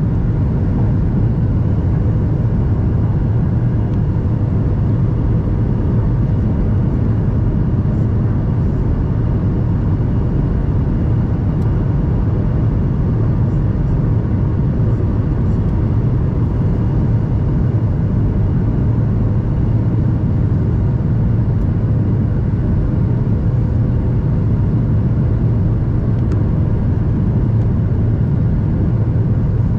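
Steady cabin noise inside a Boeing 737-800 on final approach, heard from a seat over the wing: its CFM56 turbofan engines and the rush of air make a deep, unbroken rumble with a faint steady whine on top.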